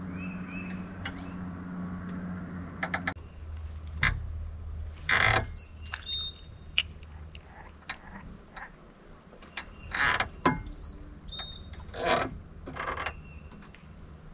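Fishing tackle being handled in a small boat: scattered clicks, clatter and rustles, louder in a few short bursts, while a bobber is rigged on the line. A steady low motor hum runs under the first three seconds and stops suddenly, and a few short bird chirps come in the middle.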